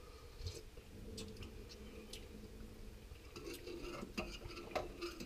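A metal spoon stirring in a stainless steel saucepan, clinking lightly against the pot now and then, with the clinks coming more often near the end. A faint steady hum runs underneath.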